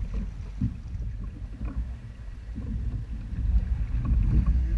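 Wind rumbling on the microphone over lake water lapping and slapping against floating plastic hulls, with a dull knock about half a second in.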